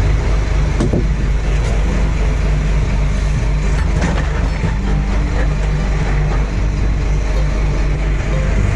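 Charter fishing boat's engine running steadily under way, a low even drone mixed with wind and water rush.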